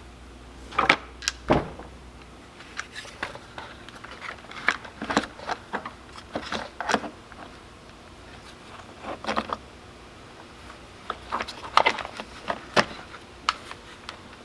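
Irregular metallic clicks and clinks of the Stihl MS193T's saw chain, bar and side cover being handled and fitted by hand, in clusters with short pauses between.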